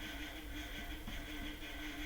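Steady whirring hum with a gently pulsing tone from the worn motor of a flip clock.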